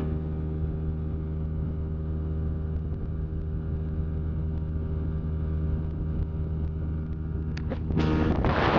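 40 hp outboard motor running steadily at speed, a constant drone of the boat under way. About eight seconds in, a loud rush of wind on the microphone rises over it.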